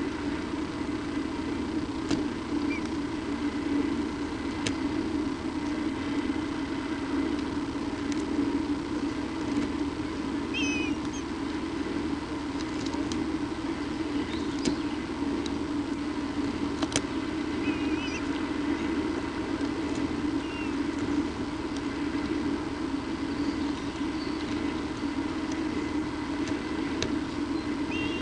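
Steady low hum, even in level throughout, with a few short, high bird chirps: about ten seconds in, twice in the later part, and again at the end. Faint scattered clicks come through now and then.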